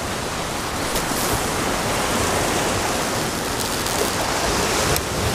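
Ocean surf washing and breaking over a rocky lava shoreline in a steady rush, with wind on the microphone.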